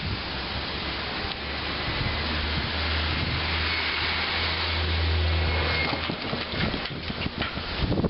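Wind rushing over the camera microphone, turning choppy and gusty near the end, with a low engine hum from street traffic through the middle.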